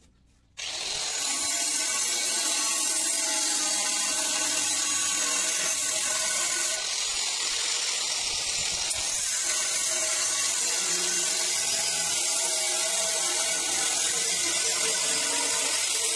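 Handheld electric angle grinder switched on about half a second in and running steadily and loudly, its disc cutting into the steel of an old circular saw blade.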